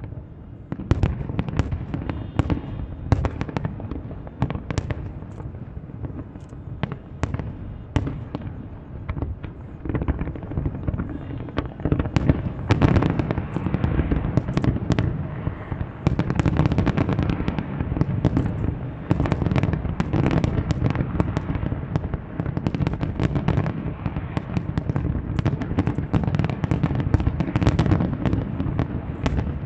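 Fireworks display bursting: rapid, overlapping bangs over a continuous low rumble, growing denser and louder about twelve seconds in.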